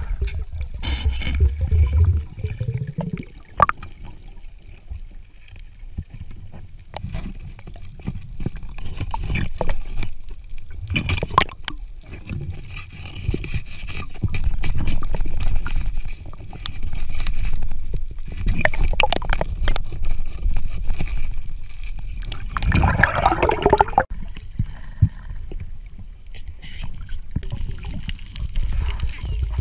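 Underwater sound picked up by a diving camera: a muffled low rumble of moving water with scattered clicks and scrapes. About three-quarters of the way through comes a louder burst of noise lasting about a second and a half.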